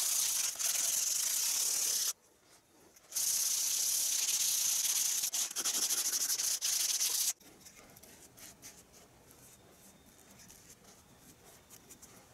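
A sponge pad rubbed back and forth over dried lightweight spackle along a board edge, smoothing it: a scratchy hiss. It drops out for about a second near two seconds in, resumes, and stops about seven seconds in, leaving near silence.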